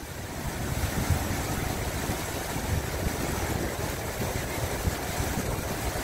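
Shallow mountain stream running over rocks: a steady rushing with a low rumble underneath.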